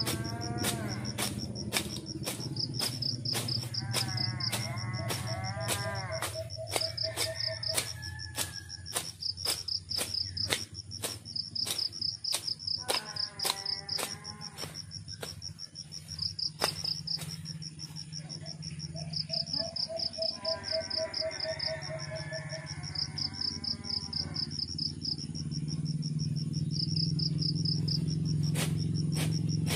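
Insects trilling in a steady, high, pulsing buzz, with sharp regular clicks a couple of times a second. Now and then a short warbling call from another animal comes in.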